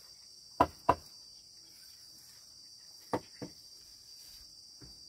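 Insects droning steadily at a high, even pitch. Over the drone come sharp knocks in two quick pairs, about half a second in and about three seconds in, with a fainter one near the end.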